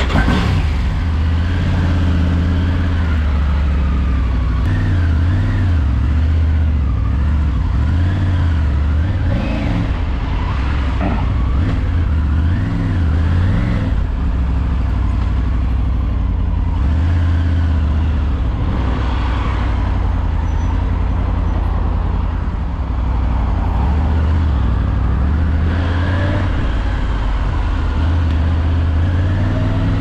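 Triumph Tiger 900 Rally's three-cylinder engine running as the bike pulls away and rides at low speed, its pitch rising and falling with the throttle.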